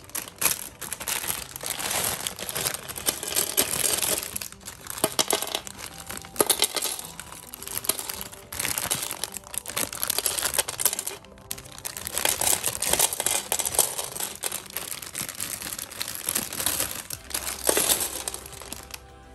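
Clear plastic bags of LEGO pieces crinkling as they are handled and torn open, with small plastic bricks clicking and clattering against each other and onto a tray. The rustling comes in several stretches with short pauses between.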